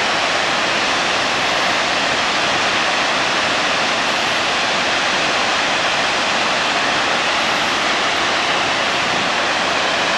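Loud, steady rush of a flood release from Kawaji Dam, a high concrete arch dam, discharging water from a reservoir swollen by typhoon rain. The spray and plunging water make an even, unbroken noise.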